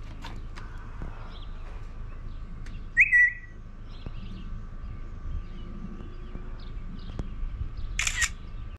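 Birds chirping: scattered small chirps, one loud short high whistle about three seconds in, falling slightly, and a brighter chirp near the end, over a faint steady tone.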